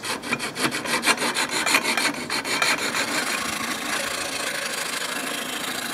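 Hand metal file rasping back and forth across an O1 tool steel knife blank, cutting the blade's bevel. It makes quick, even strokes that run together into a steady rasp in the second half.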